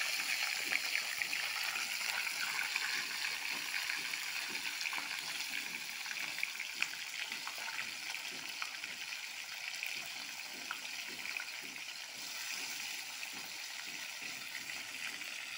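Pieces of fish frying in hot oil in a kadhai: a steady sizzling hiss with scattered small crackles, easing a little toward the end.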